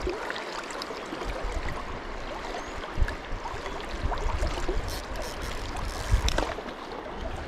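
Shallow river riffle rushing and churning, a steady wash of water noise, with a couple of low bumps about three and six seconds in.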